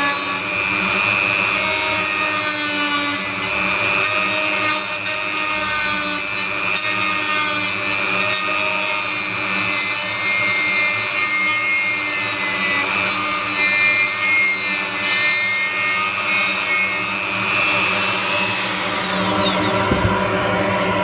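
Dremel rotary tool grinding burnt fiberglass out of a printed circuit board: a high motor whine over a rasping grind, its pitch wavering as the bit is pressed into the board. Near the end the tool is switched off and the whine falls away as the motor spins down.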